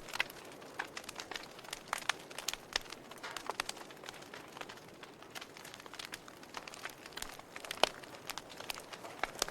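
Wood fire crackling in a fireplace: irregular sharp pops and snaps over a soft hiss, with one louder snap late on.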